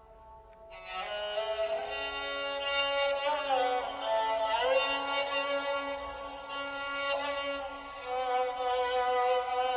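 Dilruba, a bowed Indian string instrument, playing a slow melody. A fading tone gives way to a bowed note about a second in, followed by held notes joined by sliding pitch glides over a steady low tone.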